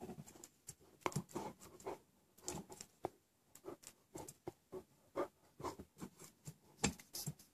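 German Shepherd puppy licking and mouthing the metal stem of an office chair caster: an irregular run of short wet licks and tongue smacks, two or three a second.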